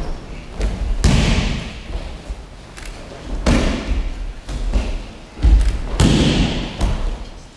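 Aikido breakfalls: people thrown onto the white canvas-covered mats land with heavy thuds, about four of them, each followed by a brief rustling smear. The heaviest come about five and a half and six seconds in.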